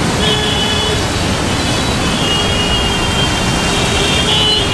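Dense road traffic of cars, buses and motorbikes running steadily, with long high-pitched tones sounding over it.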